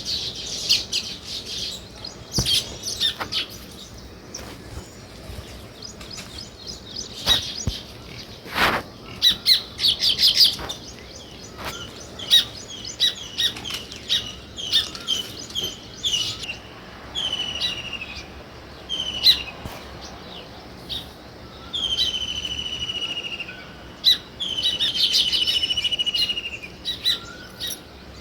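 House sparrows chirping over and over in quick short notes. In the second half come longer, drawn-out calls that drop in pitch and hold for a second or two, along with a few soft thumps.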